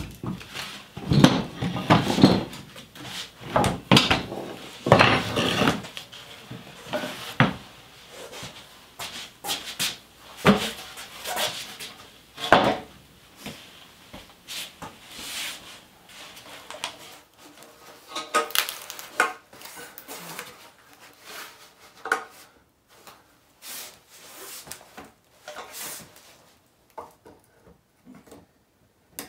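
Heavy wooden parts of an old hand-powered band saw being handled and fitted together, with irregular wood-on-wood knocks, clunks and scrapes. The knocks are busiest and loudest in the first several seconds, then thin out to sparse, lighter taps.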